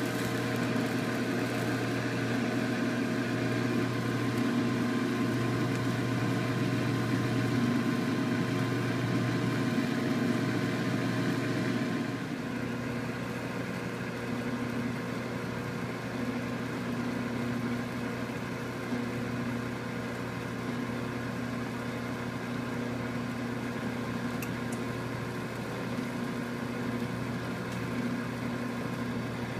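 CatGenie self-washing cat box running its cleaning cycle: a steady motor hum as the bowl turns and the comb-shaped scoop arm works through the granules. A higher hiss on top drops away about twelve seconds in, leaving the hum.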